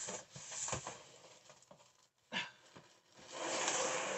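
Hands rummaging through loose wooden dollhouse-kit pieces and paper in a cardboard box: rustling and light clicks, a sharp tap about two and a half seconds in, and a longer rustle near the end.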